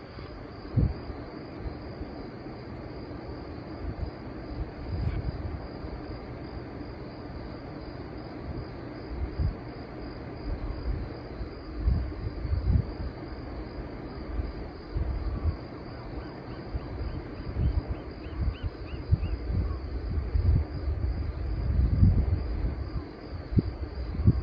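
A steady, high-pitched insect trill runs throughout, with irregular low rumbles and thumps beneath it. A short run of faint ticks comes about two-thirds of the way in.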